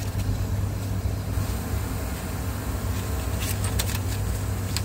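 Mercedes-Benz bus engine idling steadily, heard from underneath the vehicle, with a few light clicks about three and a half seconds in.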